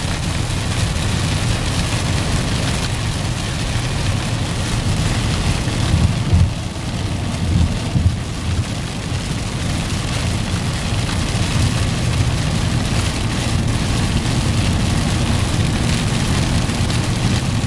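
Heavy rain falling on a moving car, over steady tyre and road noise on a wet highway, heard from inside the cabin. There are a couple of brief louder low bumps about six and eight seconds in.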